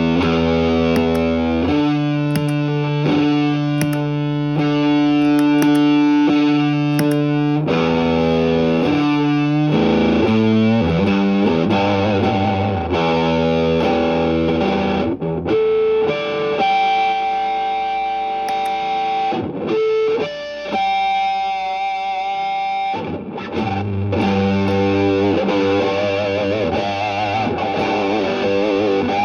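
Electric guitar with a distorted tone, played through a Caline CP-47 Pressure Tank compressor pedal. It plays held chords, then long sustained single notes with a few bends partway through.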